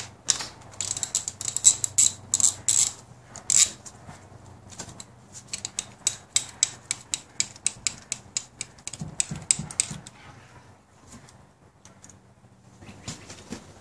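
Ratchet socket wrench clicking in quick runs of ratchet clicks as a 10 mm bolt is backed off. The clicking stops about ten seconds in.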